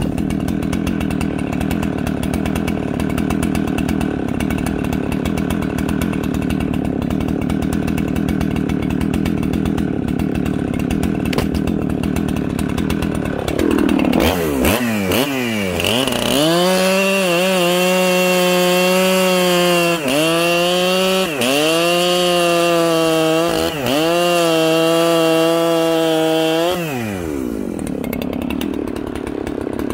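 Two-stroke chainsaw idling, then revved to full throttle with no load about halfway through. It holds a high, steady scream with a few quick dips as the throttle is blipped, then drops back to idle near the end.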